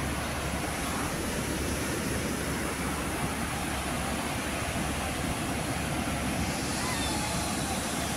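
Surf breaking on a sandy beach, a steady wash of waves rolling in, with wind rumbling on the microphone.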